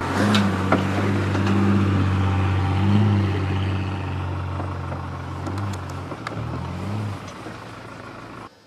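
Chevrolet S-10 Blazer's engine pulling under load as the 4x4 climbs a steep sand slope, with a steady low note, tyre and wind noise mixed in. The pitch wavers briefly near the end as the throttle changes. The sound fades as the truck climbs away, then cuts off suddenly just before the end.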